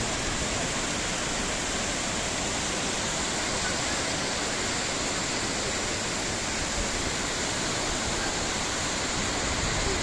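Kapuzbaşı waterfall, many streams of water falling down a cliff face, making a steady, even rush.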